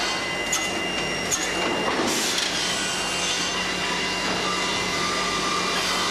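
CNC cross-cut saw line for timber running with a steady hum, with two sharp clicks in the first second and a half. About two seconds in, the saw cuts through a board for a little over a second.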